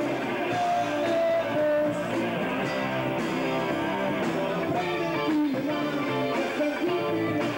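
Live band music with a strummed guitar and sustained melody notes over it.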